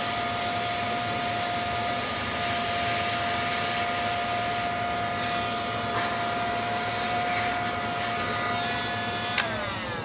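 Heat gun blowing hot air with a steady fan whine while it melts plastic along a bumper crack. Near the end it is switched off with a click, and the fan whine falls in pitch as it winds down.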